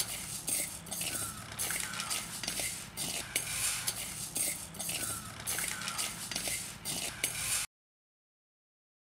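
Ladle stirring whole urad dal as it dry-roasts in a clay pot: the grains rattle and scrape against the pot with each stroke, a little over one stroke a second. The sound cuts off suddenly near the end.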